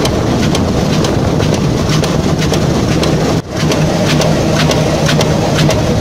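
Industrial machine running: a steady low hum with sharp, regular clicks about three times a second. The sound cuts out briefly about three and a half seconds in.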